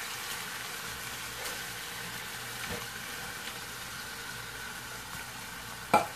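Ground beef and fire-roasted diced tomatoes sizzling steadily in a skillet, with a single sharp knock near the end.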